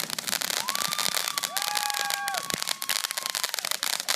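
Ground fountain firework spraying sparks with a dense, rapid crackle. Steady whistles sound over it from about half a second in, the highest one ending after three seconds.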